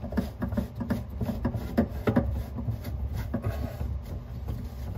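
Light, irregular clicks and knocks of a chrome tubular drain pipe and its slip nut being worked by hand, as the pipe resists going into the fitting. A steady low hum runs underneath.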